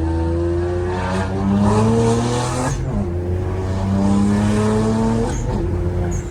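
BMW 335i's turbocharged inline-six, on a freshly installed VRSF exhaust, accelerating hard. The pitch climbs, drops at a gear shift about three seconds in, then climbs again before another shift near the end. There is a rush of hiss just before the first shift.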